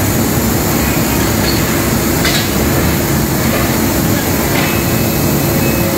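Conveyor machine for quilted padding panels running: a loud, steady mechanical rumble with a constant hum.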